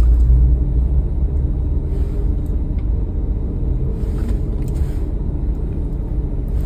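Steady low rumble of a car with its engine running, heard from inside the cabin.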